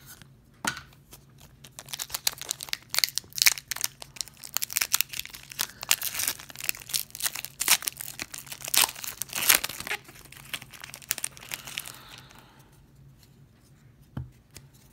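Foil wrapper of an Upper Deck Artifacts hockey card pack being torn open and crinkled by hand: a dense run of crackling for about ten seconds, dying away near the end, then a single short knock.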